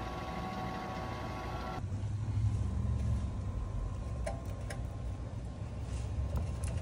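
A camshaft polishing machine running with a steady whine, then, about two seconds in, a low rumble with a few light metallic clicks as the camshaft is slid into the engine block's cam bore.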